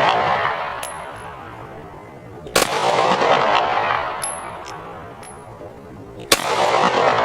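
Smith & Wesson SD9 VE 9mm pistol firing two single shots about four seconds apart, each followed by a long echo that fades over a second or so.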